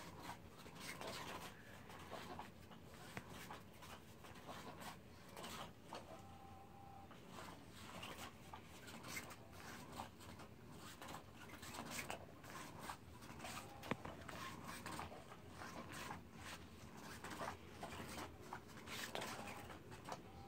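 Motorised cat toy running: faint scratchy rustling of its wand moving under the nylon skirt, with a few brief faint whines.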